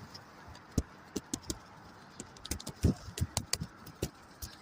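Pigeons pecking at scattered feed on the ground: many light, irregular taps and clicks.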